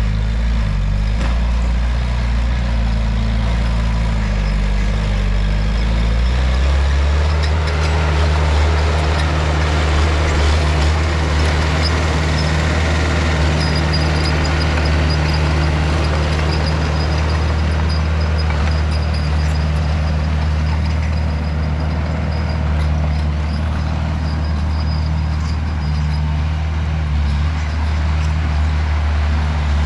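Heavy diesel engine of earthmoving machinery running under load. About six seconds in, its note rises and then holds at a steady higher run.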